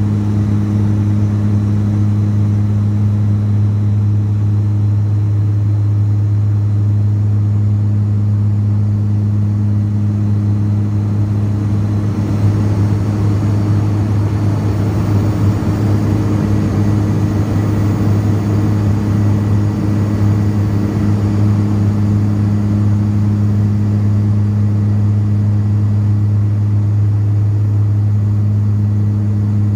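BAe Jetstream 32's Garrett TPE331 turboprop and propeller droning steadily in flight, heard inside the cabin: a strong low hum at the propeller's blade rate over rushing air. The rushing noise swells slightly midway.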